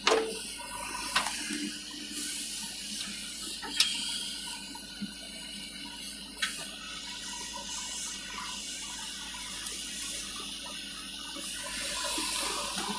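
JCB 3DX backhoe loader working: a steady rushing noise of its diesel engine and hydraulics, broken by a few sharp knocks, the sharpest about four seconds in.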